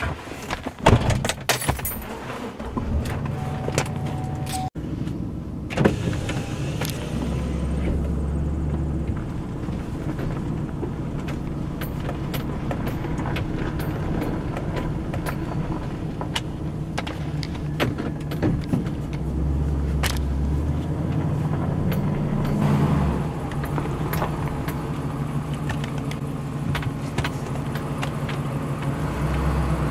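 Keys jangling and clicks as the driver gets into a pickup truck. The engine starts about two seconds in and the truck then drives slowly along a gravel driveway, heard from inside the cab with the window down, the low engine hum swelling a few times as it pulls.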